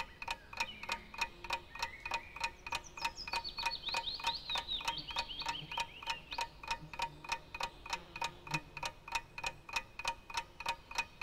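Ticking clock sound effect used as a quiz countdown timer, about three and a half even ticks a second. Twittering bird chirps come over it for a few seconds in the middle.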